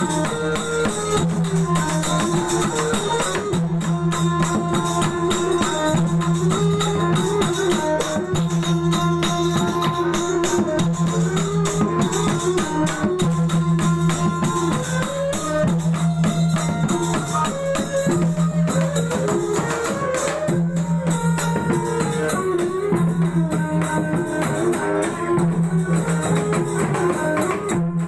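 Sasak cilokak ensemble music: a double-headed gendang drum beats a quick, dense rhythm under a plucked lute and a bowed violin carrying the melody.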